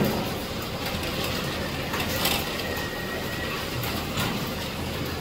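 Steady noise of a weaned-piglet nursery room, with frequent light clicks and knocks from the piglets moving about the slatted pen and its fittings.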